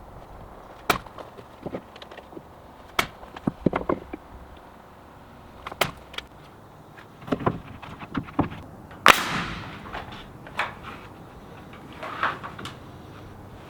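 Irregular sharp knocks and taps of wood being worked, with one loud sharp bang that rings on briefly about nine seconds in.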